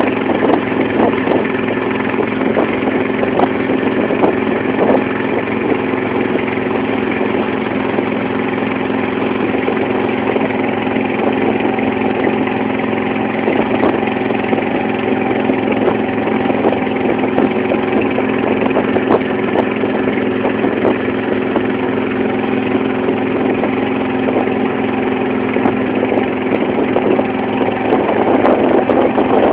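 Engine of a wooden banka motorboat running steadily at cruising speed, with its pitch shifting slightly and the sound growing a little louder near the end.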